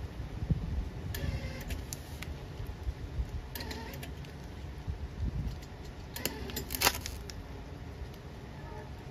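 Flux-core wire-feed welder tack-welding the broken steel branch chute of a chipper shredder: three short crackling bursts of arc, about a second in, at about three and a half seconds, and a longer, louder one at about six and a half seconds.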